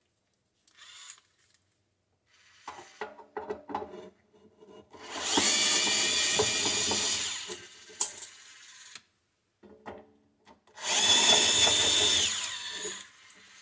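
Cordless power driver running twice, a couple of seconds each time, backing out two screws from the espresso machine's casing, with clicks and taps of handling before and between.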